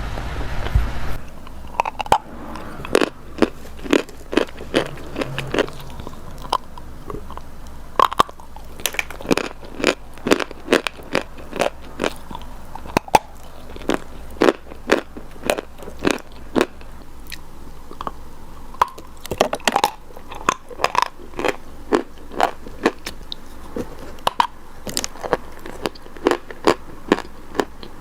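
Close-up biting and chewing of crunchy chalk: a long run of sharp, dry crunches, about one or two a second. A low steady hum stops about a second in, just as the crunching starts.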